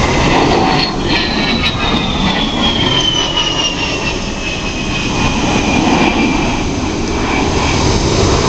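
A-10 Warthog flying low overhead, its twin TF34 turbofan engines making loud, rushing jet noise. A high whine slides steadily down in pitch as the aircraft passes over and moves away.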